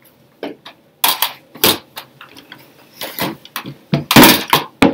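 Irregular clattering knocks and fabric rustling as a mini camp cooker and its gas canister are handled and taken out of a cloth bag; the loudest rustle comes near the end as the bag is lifted and shaken.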